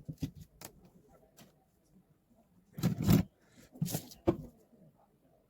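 Scattered small clicks and knocks from handling a phone and tools on a workbench, with a louder rustling clatter about three seconds in and two sharper knocks near four seconds.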